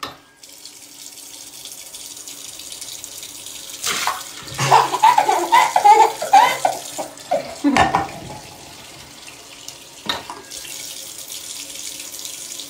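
Tap water running steadily into a stone vessel sink, partly into a small ceramic cup. A toddler laughs and squeals loudly for a few seconds in the middle, the loudest part, and there are two short knocks afterwards.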